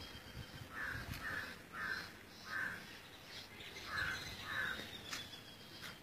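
Harsh, cawing animal calls outdoors: a run of four short calls in the first three seconds, then two more about four seconds in, with a faint thin, steady high note running behind them.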